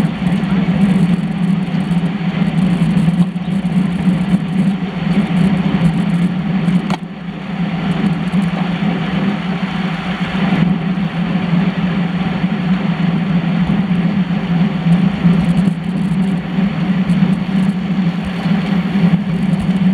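Steady riding noise of a road bicycle in a racing bunch, heard through a handlebar-mounted camera: tyres on tarmac, wind and frame vibration make a continuous low drone, which dips briefly about seven seconds in.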